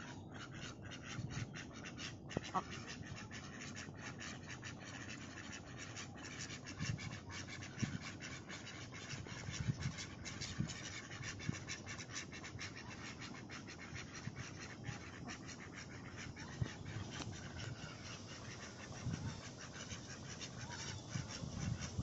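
A flock of domestic ducks quacking softly in short, scattered low calls as they forage, over a fast, even, high-pitched pulsing in the background.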